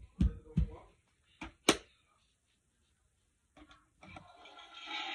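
A few short knocks and taps as toys are handled and set down. After a pause, a hissing noise begins about four seconds in and grows louder.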